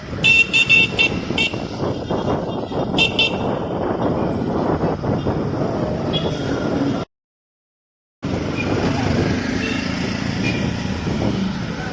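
Busy street traffic with car horns beeping in quick short toots, a cluster of them in the first second and a half and another about three seconds in. The sound cuts out completely for about a second a little after the middle.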